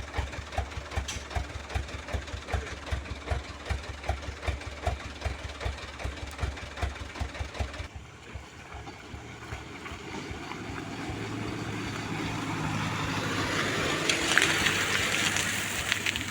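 A palm-oil truck's diesel engine running at low revs, with even low pulses about four a second. About eight seconds in the sound changes suddenly to a steady engine hum under a rising hiss that grows loudest near the end.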